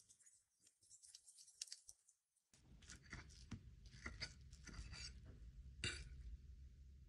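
Faint, scattered crackles and pops of oil under vegetable fritters frying in a pan, nearly silent for the first couple of seconds, then joined by a low hum, with one sharper pop near the end.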